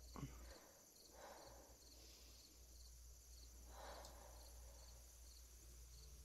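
Near silence: faint hiss with soft, evenly spaced high chirps about twice a second.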